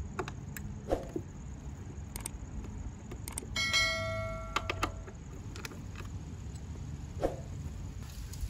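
Scattered small metallic clicks and taps of a screwdriver working the screws of a Harley-Davidson's chrome air cleaner cover. A little over three and a half seconds in comes one bright metallic ring that dies away within about a second.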